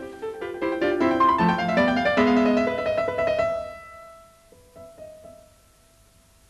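Slow piano-like keyboard music: a run of many notes, fading after about three and a half seconds to a few soft, sparse notes.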